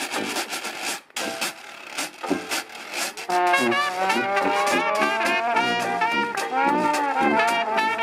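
Dixieland jazz band: washboard scraped with thimbled gloves and strummed banjos keep a steady beat over sousaphone. About three seconds in, two cornets and a trombone come in together, the trombone sliding between notes.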